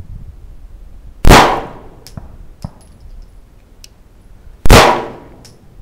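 Two handgun shots about three and a half seconds apart, each loud and sharp with a fading echo, with a few faint sharp clicks between them.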